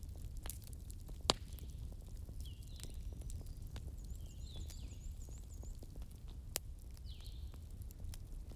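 Bonfire ambience: a wood fire crackling with scattered sharp pops, two of them loud, over a steady low rumble, while small birds chirp short falling notes, with a quick run of high repeated chirps around the middle.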